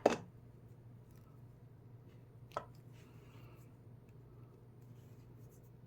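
Handling of a hydraulic hand crimper and a freshly crimped cable lug: a sharp click right at the start and a smaller one about two and a half seconds later, over a faint steady hum.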